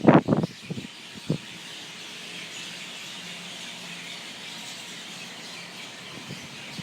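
A large flock of birds chattering and chirping all at once in a banyan tree as they gather to roost at sundown: a dense, even chorus. In the first half second a few gusts of wind buffet the microphone.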